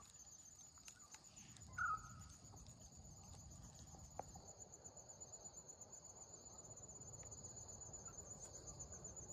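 Faint, steady high-pitched pulsing trill of insects, with a brief louder sound about two seconds in.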